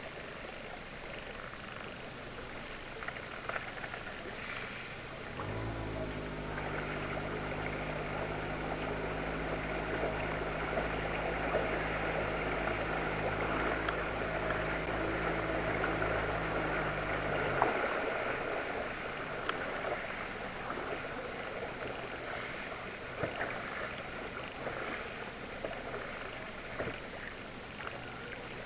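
Outboard motor running under way on an inflatable boat, coming in suddenly about five seconds in and cutting back suddenly after about twelve seconds, with water rushing along the hull. Before and after it, water lapping and wind.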